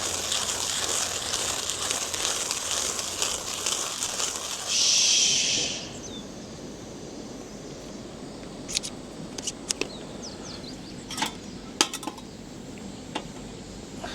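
A crackly rushing noise for about six seconds that rises to a short, louder hiss just before it stops. After it, a few light clinks of cups or utensils, some of them in quick pairs.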